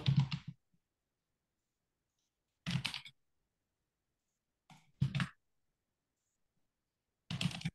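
Three short clusters of computer keyboard typing and mouse clicks, each under half a second, with dead silence between them.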